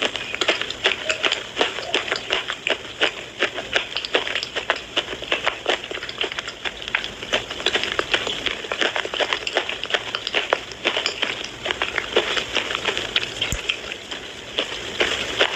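Close-miked chewing and crunching of Minakshi brand slate pencils: a dense, continuous run of small sharp crunches, many a second.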